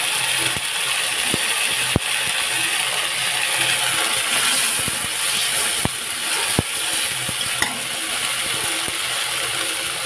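Chopped tomatoes, onion and masala frying in oil in a kadhai, a steady sizzle, with a metal spatula clinking and scraping against the pan a few times as it stirs.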